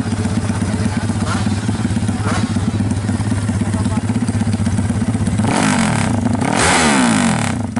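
Yamaha MX King motorcycle engine, bored up to 321 cc and breathing through an aftermarket racing exhaust, idling. It is blipped briefly twice, then revved up and back down twice near the end, the second rev the loudest.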